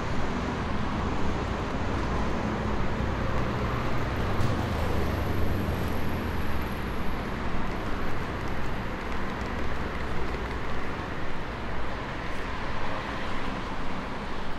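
Street traffic: a steady rumble of cars and engines passing.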